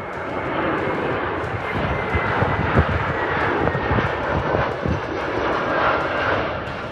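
Airliner's engines passing: a broad rush that swells through the middle and eases near the end, with a faint whine falling slowly in pitch.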